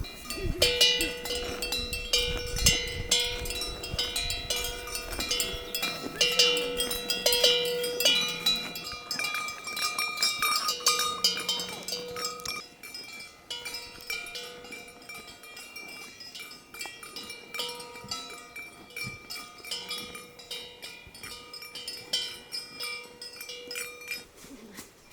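Bells on the necks of herded cows clanking and ringing irregularly as the animals move, several bells at different pitches, louder in the first half and fainter after about twelve seconds.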